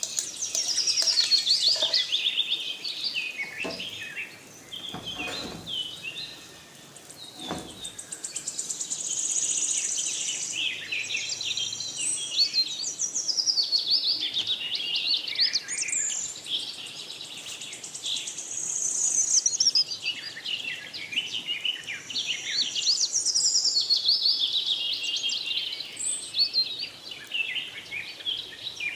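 Birds chirping and singing: many quick, rising and falling calls in rapid runs, with a few faint low knocks a few seconds in.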